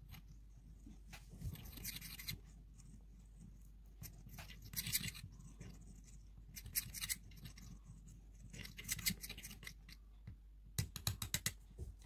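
Fingers rubbing and crumbling small white flakes into a tiny brass bowl, giving several short scratchy rustles a few seconds apart. Near the end comes a quick run of light clicks, a miniature wire whisk tapping against the metal bowl.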